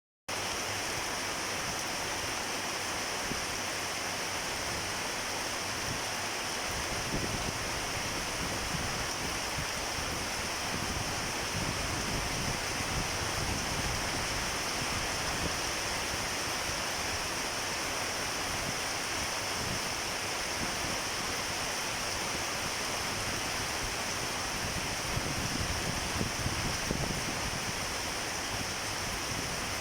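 Storm wind: a steady rushing noise, with gusts buffeting the microphone now and then, most strongly a little before the end.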